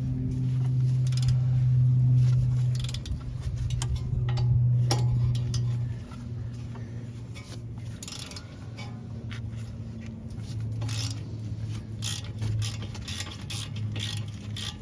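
Metal hand tools and parts clinking and scraping in irregular short knocks during suspension work on a car, over a steady low hum that is loudest for the first few seconds.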